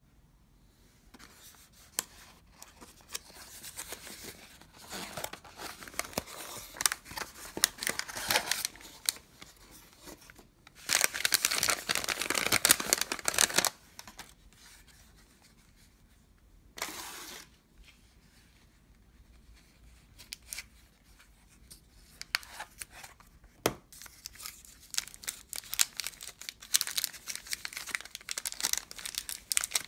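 Paper and cardboard packaging handled by hand: a box opened and brown paper wrapping rustled and torn, loudest in a few seconds of tearing and rustling about eleven seconds in. Tissue paper crinkles near the end as it is peeled off the razor.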